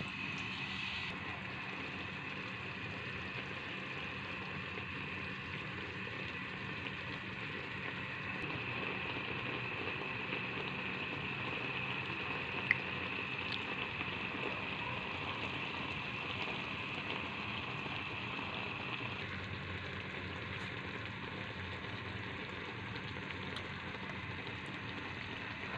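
Fish steaks simmering in a dark sauce thinned with water in a metal wok: a steady bubbling hiss, with one sharp click about halfway through.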